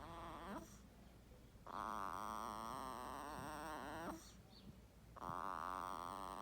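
Five-day-old newborn snoring in sleep: slow, even snores about two and a half seconds long with pauses of about a second between them. One snore ends about half a second in, a full one follows, and another begins near the end.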